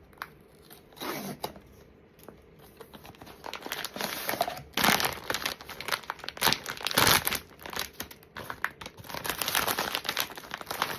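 Blind box packaging torn open and crinkled by hand: faint rustling at first, then dense crinkling and tearing that grows louder from about four seconds in.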